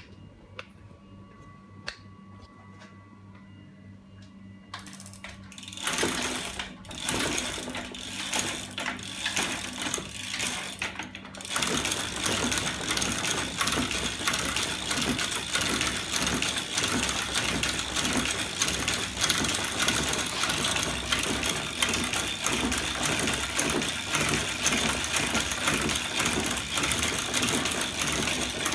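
Homemade bicycle drive rig of aluminium lever arms, chain and magnet-stacked sprocket, which the builder says is driven by a battery and electric motor, starting up about five seconds in and running in uneven spurts. After a few more seconds it settles into a steady, rapid mechanical clatter.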